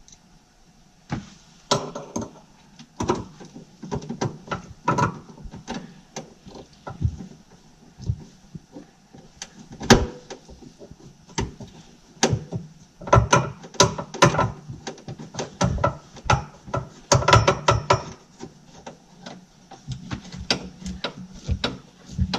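Irregular knocks, clicks and clatter of metal hardware being handled and fitted by hand, coming in quick clusters twice in the second half.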